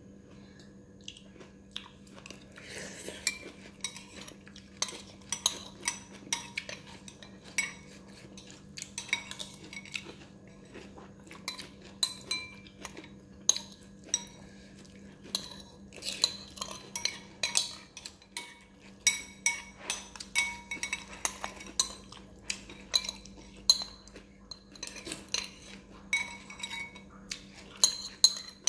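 Metal spoon scraping and clinking against a bowl of noodles and broth in many irregular sharp clinks with a brief ring, coming more often in the second half as the bowl is scooped out.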